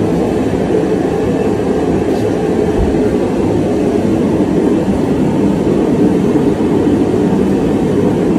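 Steady, loud, unchanging mechanical drone, as of shop equipment running in the garage.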